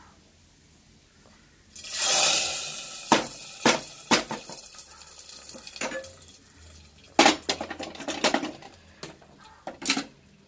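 Hot sesame-oil tempering poured from a kadai into cooked toor dal in a pressure cooker, with a brief sizzle about two seconds in. Metal clinks and knocks of the pan and a spoon against the cooker follow.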